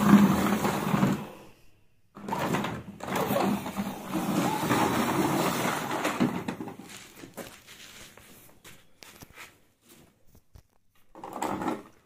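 Plastic toy bus pushed back and forth across a wooden board, its wheels rolling and scraping in spells, trailing off into scattered clicks of plastic toys being handled, with a last short burst of handling noise near the end.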